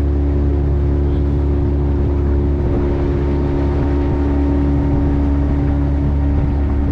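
Motorboat engine running steadily at a constant speed, a loud even drone.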